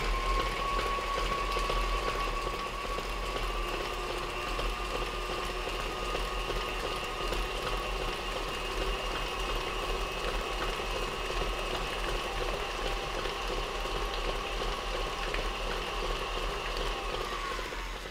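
Electric tilt-head stand mixer running with its flat beater turning batter in a steel bowl: a steady motor whine that rises slightly as the speed is turned up at the start and falls away as the mixer slows near the end.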